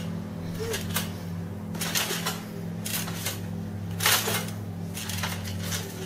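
Trampoline springs and mat clinking and clattering in short irregular bursts as a dancer bounces on it, over a steady low drone.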